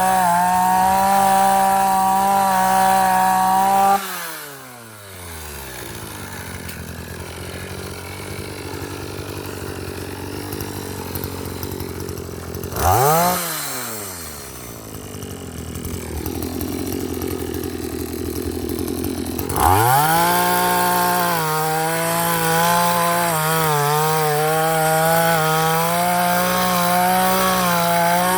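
Vulcan earth auger's small petrol engine running at full throttle, then throttled back about four seconds in, its pitch falling to a low running speed. It gives one short rev about halfway through, then is revved back up to full speed near the end, its pitch wavering as the auger bit works into the soil.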